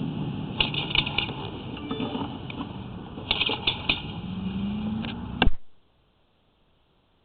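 Sewer inspection camera being fed along a cast iron drain line: a steady rumble of the push rod with clusters of clicks and knocks, and a low rising tone near the end. A sharp click about five and a half seconds in, after which the sound cuts off abruptly to near silence.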